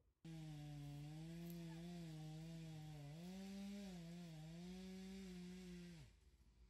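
Chainsaw engine running steadily at high speed, its pitch dipping and recovering about halfway through, then falling away as it winds down near the end.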